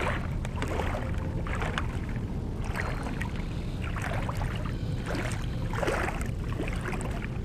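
Feet wading through shallow seawater, splashing with each step about once a second, over a steady low rumble.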